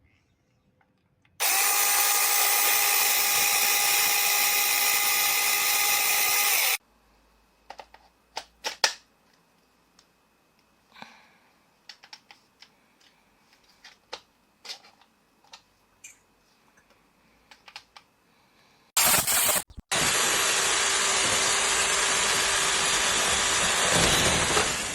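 Sukumo cordless 6-inch electric chainsaw running at a steady speed for about five seconds. After a stretch of light clicks and knocks it starts again briefly, then runs steadily for about five seconds more.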